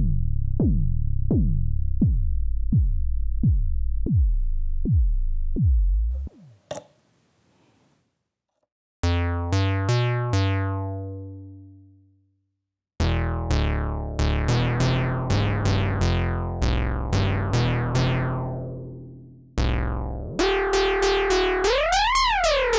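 Moog Werkstatt-01 analog synthesizer patched as a kick drum and clocked by its LFO square wave: a steady run of pitch-dropping kick hits, about one and a half a second, that stops about six seconds in. After a short pause it plays single long-decaying notes, then fast repeating plucked notes, with a filter sweep that rises and falls near the end.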